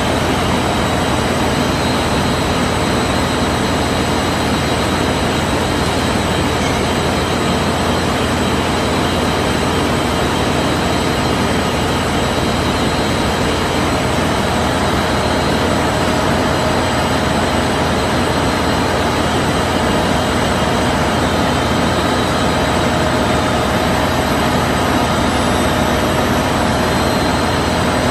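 Industrial open-width fabric washing machine running steadily: a constant loud mechanical drone and hiss with a few faint steady whining tones, unchanging throughout.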